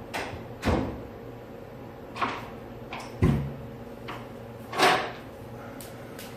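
Handling noise from painting at a table: about eight short knocks and rustles of small objects being picked up and set down, the loudest a dull thump a little over three seconds in.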